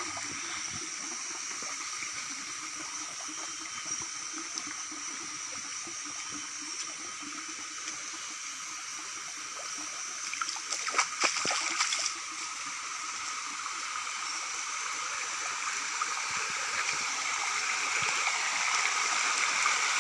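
Shallow forest stream trickling and gurgling over rocks, growing a little louder near the end. A brief cluster of sharp knocks comes about halfway through.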